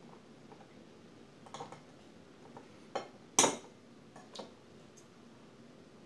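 Metal knife and fork clinking and scraping against a ceramic plate while cutting cheese: about five separate clinks, the loudest about halfway through.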